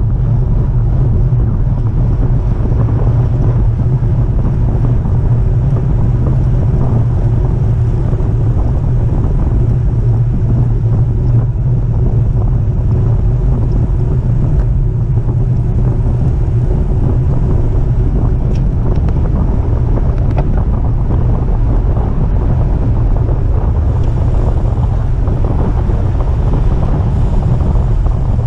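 Wind rushing over the microphone of a camera riding on a moving road bicycle: a steady, loud low rumble.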